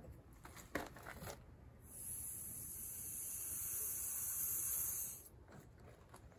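Refrigerant hissing as the mini split outdoor unit's service valve is cracked open with an Allen wrench, letting it rush into the evacuated line set. Two light clicks come first; the hiss starts about two seconds in, swells slightly and stops about three seconds later.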